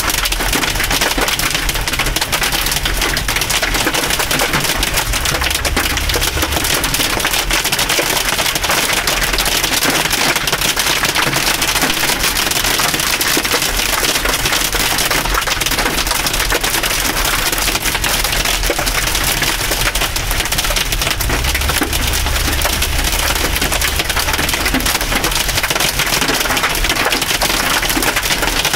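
Hail and heavy rain pelting a car's roof and windshield, heard from inside the cabin: a loud, dense, unbroken clatter of impacts.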